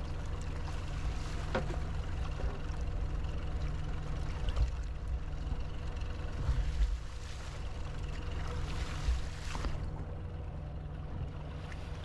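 Steady low rumble of wind and water around a small boat, with a few faint splashes from a hooked fish thrashing at the surface beside it.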